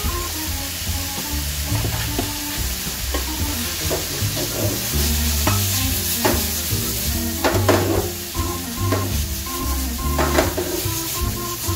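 Sliced vegetables sizzling steadily in a hot non-stick frying pan as a metal spatula stirs and tosses them, with sharp scrapes and taps of the spatula on the pan, more frequent in the second half.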